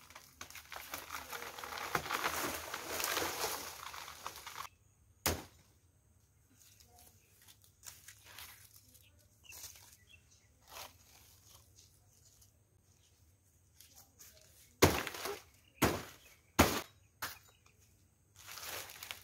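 Big leaves of a banana plant rustling as the plant is pulled down. A sharp chop of a large knife follows about five seconds in, then a quick run of four sharp chops near the end as stalks and leaves are cut.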